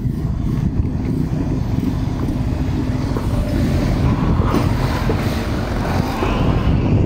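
Motor scooter running steadily as it rides along a dirt road, with wind buffeting the microphone.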